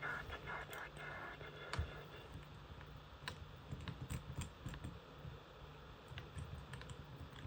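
Faint, irregular clicks and light taps of small tools and parts being handled during an iPad screen repair, over a low background hum.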